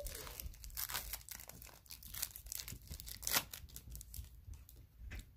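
Foil-wrapped baseball card pack being torn open and crinkled, an irregular run of crackling with a few louder rips.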